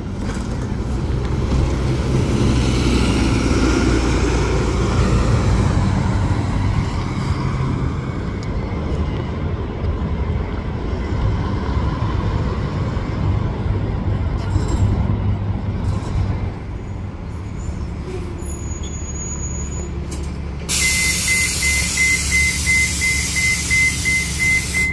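City transit buses running, with the low diesel rumble of one swelling over the first few seconds and then easing off. About 21 seconds in, a loud air hiss starts suddenly, with a rapid high-pitched beeping over it.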